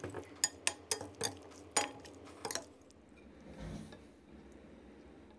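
Utensils clinking against a metal mixing bowl as a spicy fried chicken salad is tossed: about eight sharp clinks in the first two and a half seconds, then it goes quiet.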